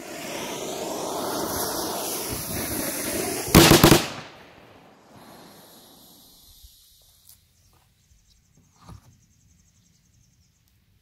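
Black-powder mini cannon with a bronze barrel: its fuse hisses and sputters for about three and a half seconds, then the cannon fires with a loud sharp bang that fades off over the next second or two.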